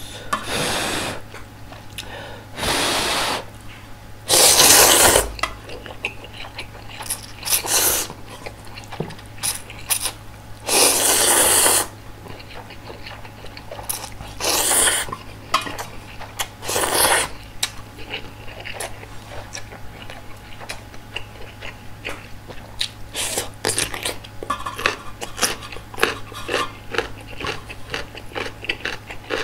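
Close-miked eating of instant ramyeon: several long, loud noodle slurps over the first half, then chewing with many short, quick smacks and clicks.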